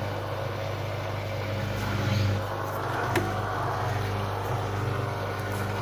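LG WD-80155NUP front-loading washing machine running in the phase just before its spin, with a steady low hum and one sharp click about three seconds in.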